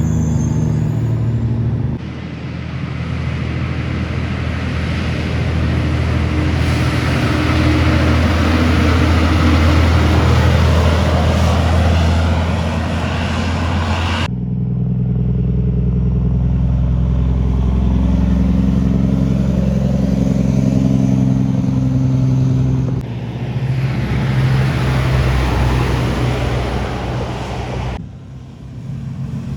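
Heavy trucks passing on a highway: diesel engines running under load with tyre and road noise. The sound changes abruptly several times, as separate passing trucks are cut together.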